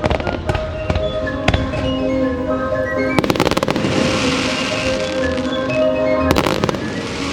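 Aerial fireworks bursting over the show's music: scattered bangs, with two dense volleys of rapid crackling about three seconds in and again about six seconds in, the first followed by a hiss.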